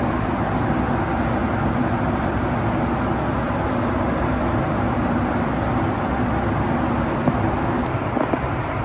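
Steady cabin noise of a Boeing 757 in flight: the even rush of engines and airflow with a faint low hum. A couple of light clicks come near the end.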